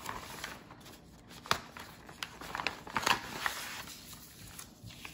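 Plastic packaging crinkling and paper sheets rustling as a cross-stitch kit is unpacked by hand, in scattered crackles with two sharper ones about a second and a half in and about three seconds in.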